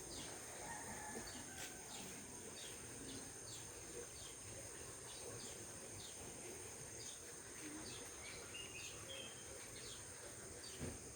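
Faint outdoor ambience of birds chirping in short repeated calls over a steady high-pitched insect drone.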